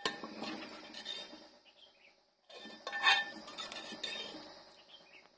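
A metal spoon stirring and lifting thick rice kheer in a pot, clinking and scraping against the pot, loudest at the start and again about three seconds in.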